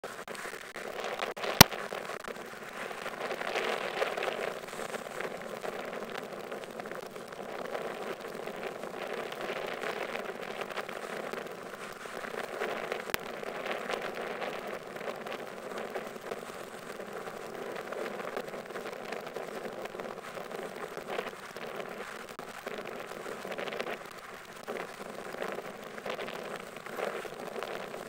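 Choppy water lapping and splashing as a steady crackling wash, with a sharp click about one and a half seconds in and a fainter one about halfway through.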